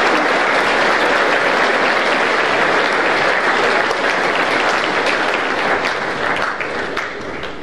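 A large audience of schoolboys applauding: dense, steady clapping that thins out near the end.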